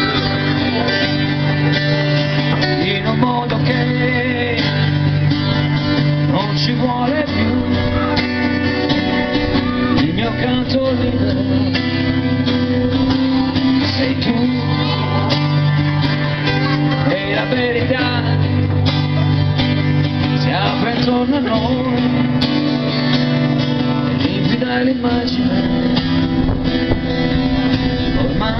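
Live amplified music from a small stage duo: acoustic guitar playing over sustained bass chords that change every few seconds, in a passage with no clear singing.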